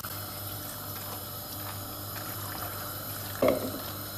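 Water pouring steadily from a plastic jug into a pot of pasta in tomato sauce. A brief louder sound comes about three and a half seconds in.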